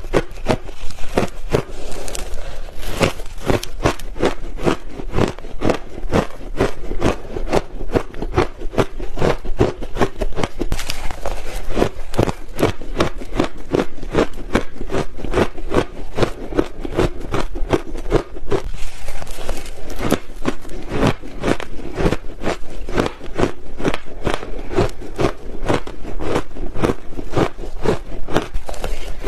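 Close-miked biting and chewing of ice, a steady run of loud, sharp crunches, several a second without pause.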